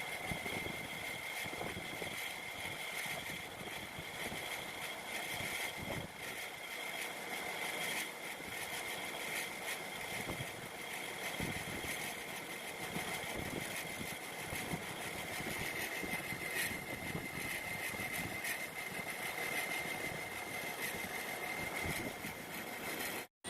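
Lathe running steadily with a constant high whine, likely while a brass part is machined. The sound breaks off suddenly for a moment near the end.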